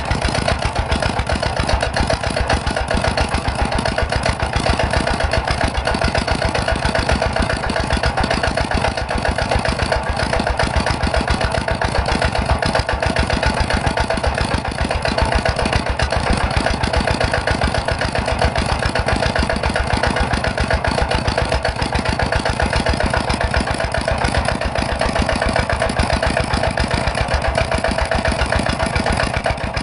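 Miniature rice-milling machine running steadily, its small motor and mill giving a fast, even chatter with a steady hum.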